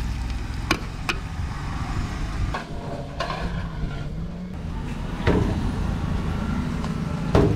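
A steady low rumble of outdoor background noise, broken by several sharp knocks, the loudest just before the end.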